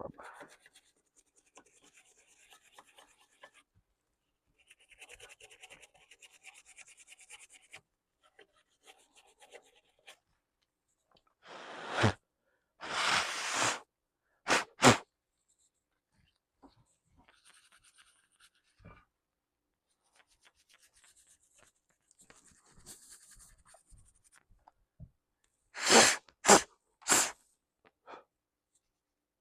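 Faint rubbing and scratching on a dusty laptop part, then hard puffs of breath blown onto it by mouth to clear the dust, in place of compressed air: four puffs about halfway through and three quick puffs near the end.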